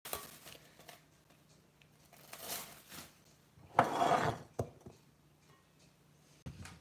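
A dish being handled: a few light knocks and a louder half-second clatter about four seconds in.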